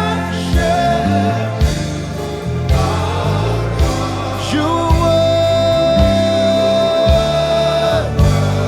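Live gospel worship music: keyboard, bass guitar and drums playing under sung voices, with a long held note from about five to eight seconds in.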